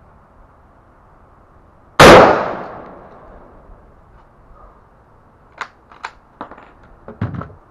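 A single shot from a Mosin-Nagant rifle firing a handloaded 7.62×54R armour-piercing incendiary round: one loud crack about two seconds in, its echo dying away over about a second. A few seconds later come several light clicks and knocks.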